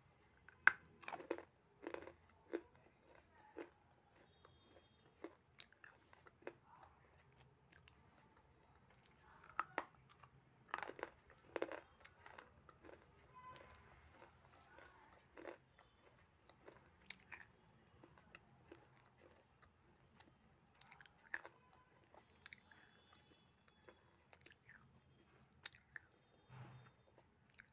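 A person biting off and chewing lumps of grey clay: irregular crisp crunches, thickest in the first few seconds and again around ten to twelve seconds in, sparser in between.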